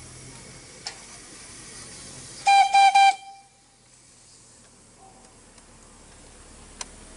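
Miniature-railway steam locomotive's whistle giving three short toots in quick succession about two and a half seconds in, over a steady hiss of steam.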